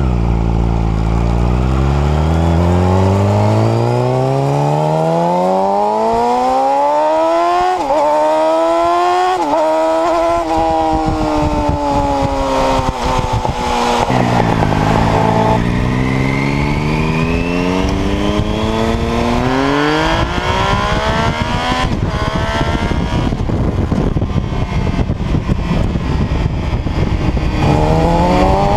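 High-revving engines accelerating hard through the gears in two runs, one after the other. Within each gear the pitch climbs steadily, and it drops sharply at each upshift: a couple of quick shifts in the first run, and the pitch falls back about halfway before the second run climbs through several more gears.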